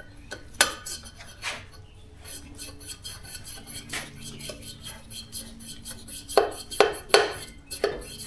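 Steel valves being worked in the freshly oiled valve guides of a 5.3 LS cylinder head, giving light metallic clicks and taps, with a quick run of them about six seconds in. The oil on the stems lets the valves slide freely in the guides.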